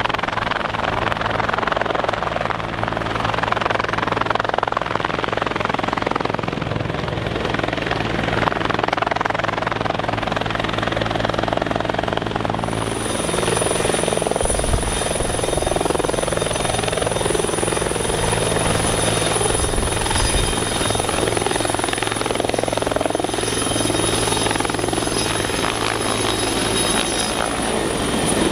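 Bell 412 helicopter hovering low, rotor and turbine running steadily, while its belly tank is filled through a suction hose from a water pool. About halfway through, a high steady turbine whine comes in strongly.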